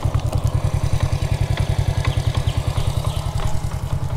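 Small motor scooter engine idling with a fast, even low putter.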